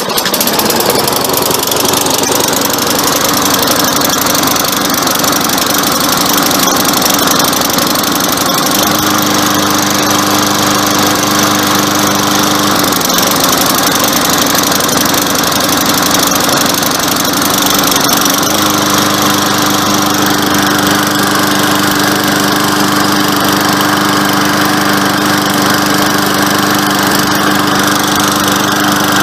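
Toro 6.5 hp walk-behind lawn mower engine starting and running with a miss caused by a badly clogged air filter. The running note is uneven at first and settles into a steady note about nine seconds in. It wavers again around thirteen seconds and holds steady from about eighteen seconds.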